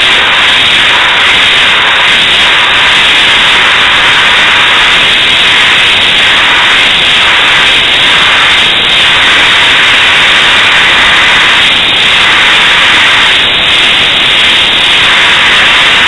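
Compressed air blasting from an air compressor's blow nozzle in a steady, very loud hiss, with a golf ball held floating in the jet. The dimples on the golf ball make the air go around it in funny ways, which makes the jet really loud.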